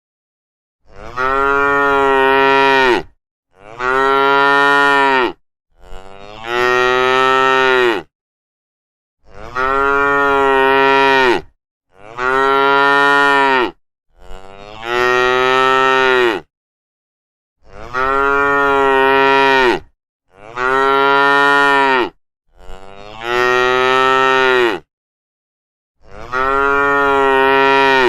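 Cows mooing: a string of about ten long, level moos, each lasting about two seconds, with short silent gaps between them.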